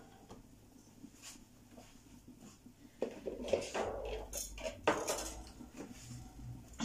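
Kitchen pots and utensils being handled: a few faint clinks, then several knocks and clatters of metal cookware starting about three seconds in.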